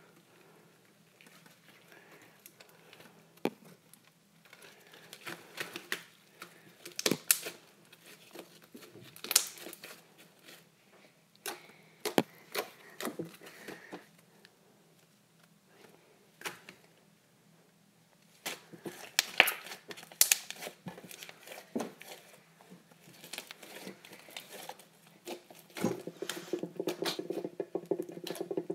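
Hands stretching, squeezing and poking white foamy slime: irregular sticky crackles, pops and squishes, coming in clusters, with a denser stretch of crackling near the end.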